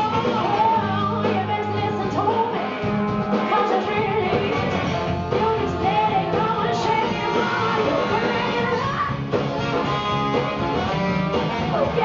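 Live soul-rock band playing loud and steady: horns, electric guitar and bass guitar over drums, with a lead melody line that bends and slides in pitch above the band.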